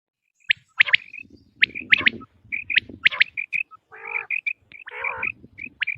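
Recorded quail calls of the kind played on a hunting call cassette to lure quail: quick, sharp whistled notes in twos and threes, repeated throughout, with softer short chirps between them.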